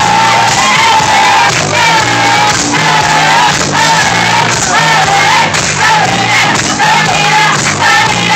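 Loud dance music played over a sound system, with a wavering melody line, percussion strokes about once a second, and crowd noise from the guests.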